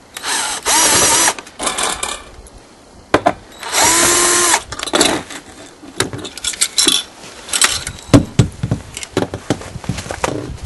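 Power drill run in short bursts, each winding up and dropping off, then scattered knocks and clicks of handling parts.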